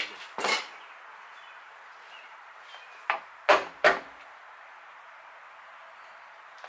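Short knocks and clacks of hand tools and bolt hardware being handled: one about half a second in, then three sharp ones close together about three seconds in, over a steady background hiss.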